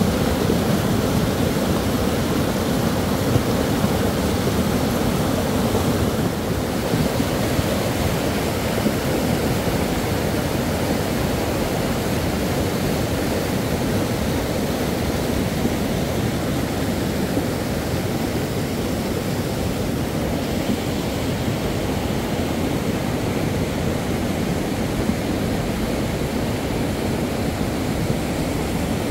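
Steady rushing of water: heavy rain or floodwater, an even noise that does not let up.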